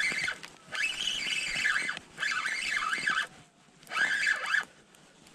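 Spinning reel whirring in short spurts, several times about a second each with brief pauses, as a hooked fish is played and reeled in.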